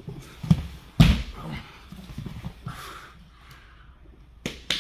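Grappling on foam mats: bodies and hands thudding and slapping on the mat as the pair scramble into an arm triangle, with softer scuffing between. The loudest thud comes about a second in, and another near the end.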